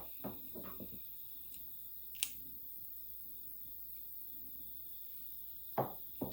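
Quiet background with a faint, steady high hiss, a single sharp click about two seconds in, and a couple of soft knocks near the end.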